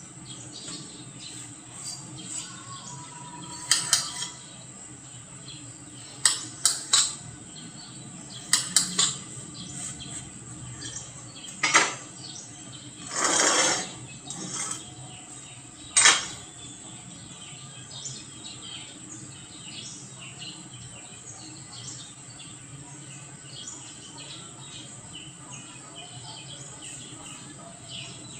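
Metal parts and tools clinking and knocking during hand fabrication work, about ten sharp strikes spread over the first half, with a brief scraping rush lasting about a second midway.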